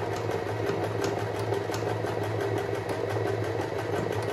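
AEG NM 1714 household sewing machine running steadily, sewing a zigzag stitch as it is widened, with rapid even needle strokes over the motor hum. The machine is freshly cleaned and oiled and runs quietly.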